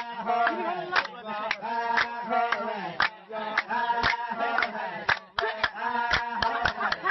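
A pair of Laysan albatrosses in their courtship dance: sharp bill clacks, many in quick runs, mixed with drawn-out pitched calls that bend up and down as they point their bills skyward.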